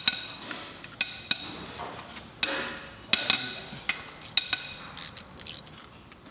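Wrench and bolts clinking against a Subaru EJ20 engine block as its 12 mm case bolts are loosened: about ten sharp metallic clinks with a short ring, irregularly spaced and growing fainter near the end.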